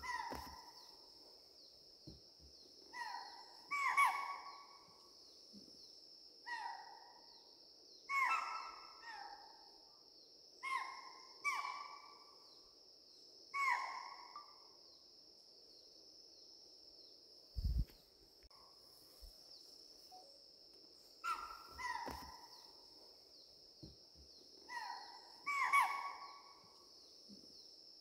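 Repeated short animal calls, one every one to two seconds, each a sharp onset falling in pitch, over a steady high hum like insects.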